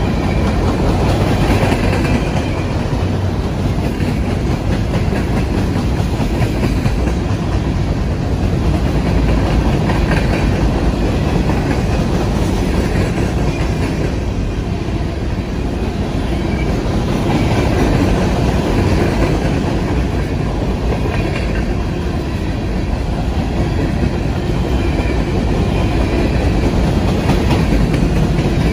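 Coal train's hopper cars rolling past close by: a steady rumble with the clickety-clack of the wheels on the rails.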